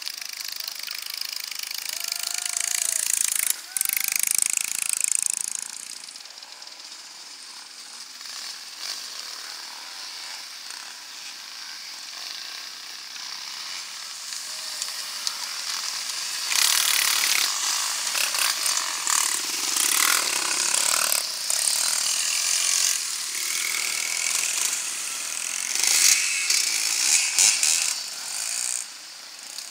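Off-road motorcycle engines revving and riding past on snow, several bikes. The sound drops off a few seconds in, swells again about halfway and is loudest near the end as one bike goes by close.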